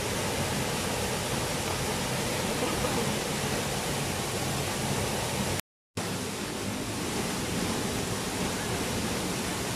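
Waterfall pouring into its plunge pool: a steady, even rush of falling water. The sound drops out completely for a split second about six seconds in.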